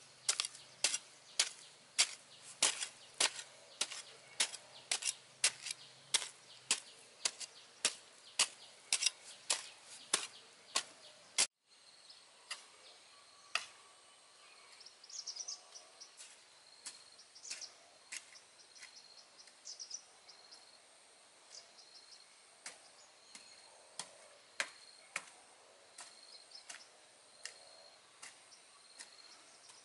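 A hoe chopping into stony soil in a steady rhythm of sharp strikes, about two a second, which stops abruptly about eleven seconds in. Then a steady high drone of insects with chirping birds and a few soft scattered clicks.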